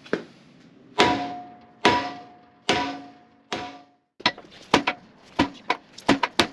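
Hammer blows on a tight steel pin being driven into the quick coupler, the metal ringing after each strike: five heavy blows about a second apart, then quicker, lighter knocks from about four seconds in. The pin is barely moving.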